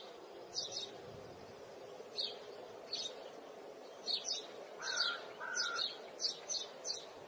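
Songbirds chirping: a scattered series of short, high chirps, with two short, steady lower whistled notes about five seconds in.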